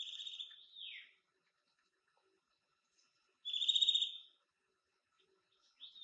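Ferruginous flycatcher calling: a short rapid high trill ending in a falling note, a second trill about three and a half seconds in, and another quick falling note at the end.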